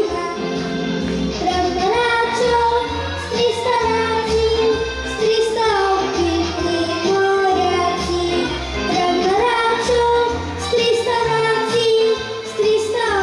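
A girl singing a children's song over a recorded backing track with a steady beat.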